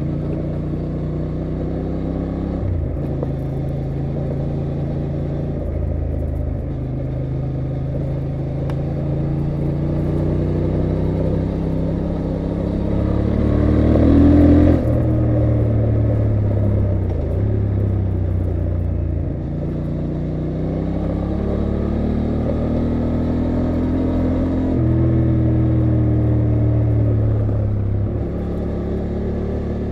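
2023 Honda Transalp XL750's 755 cc parallel-twin engine pulling hard through the gears on a gravel road. Its pitch climbs in each gear and drops at each shift. It is loudest in a hard run about halfway through, then the rider eases off.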